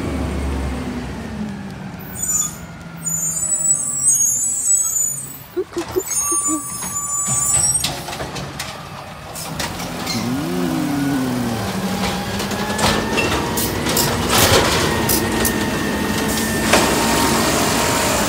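Garbage truck running close by: its engine is steady, then rises and falls in pitch about ten seconds in. A run of sharp knocks and clatter follows in the later seconds.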